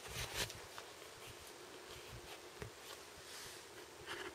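Faint handling noise: light rustling with a few soft clicks near the start.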